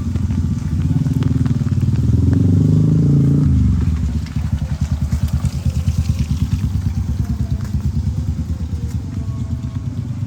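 An engine running with a fast, even pulsing beat. It climbs in pitch about two seconds in, then drops back to a lower, steady run after about a second and a half.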